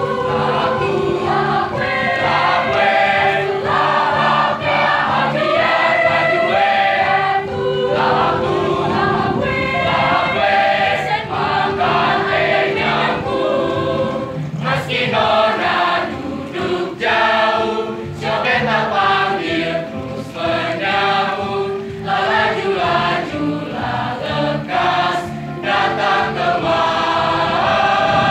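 Large mixed school choir of boys and girls singing a song together.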